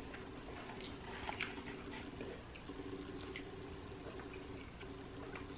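Faint chewing and wet mouth sounds of someone eating fried chicken wings and chips, with small scattered clicks, over a steady low hum.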